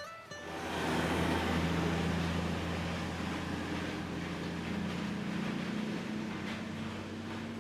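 Komatsu HD465 rigid dump truck's diesel engine running while its raised bed tips limestone into a crusher hopper, with a broad rushing of rock pouring out, loudest in the first couple of seconds. About two-thirds of the way through, the engine note steps up a little.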